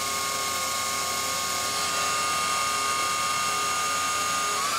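Kitamura Mycenter 2 vertical machining center's spindle running steadily at 6,000 RPM with a high whine. Near the end its pitch rises as the spindle speeds up to 7,000 RPM.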